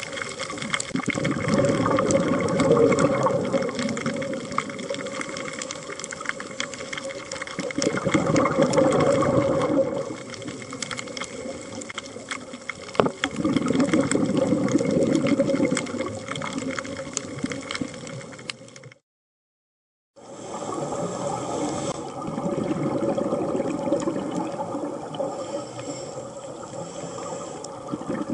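Scuba diver's exhaled bubbles gurgling and rumbling underwater, swelling and fading in surges about every five or six seconds with each breath. A steady faint tone runs underneath, and the sound cuts out for about a second two-thirds of the way through.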